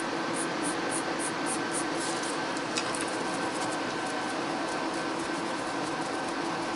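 Steady whir of a nail table's built-in dust extraction fan, with quick, evenly spaced rasping strokes of a hand nail file on a gel nail, about three or four a second, through the first half and fainter after.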